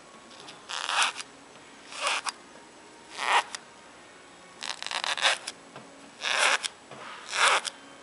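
Masking tape pulled off the roll in six short rasping strips, spaced about a second or more apart.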